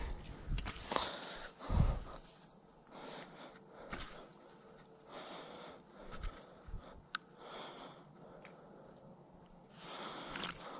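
Steady high-pitched chorus of insects, such as crickets, with close rustling and bumps from hands handling near the microphone in the first two seconds and a few sharp clicks later.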